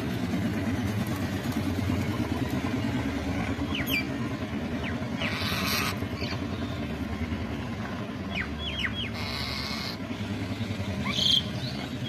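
Birds giving short chirps, quick downward-sliding notes in small clusters, over a steady low rumble like a running engine or traffic.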